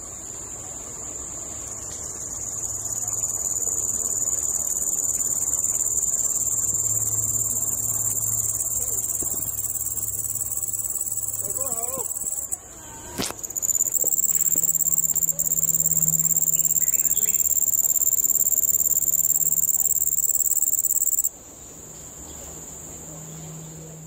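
A cricket singing a continuous, high-pitched trill by rubbing its raised forewings together. It breaks off briefly about halfway through, resumes, then stops abruptly a few seconds before the end.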